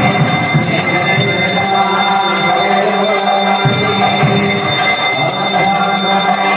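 Hindu temple festival music with bells ringing rapidly and without pause, over a pulsing low beat.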